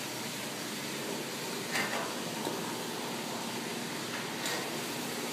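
Steady background hiss, with two faint clicks about two and a half seconds apart.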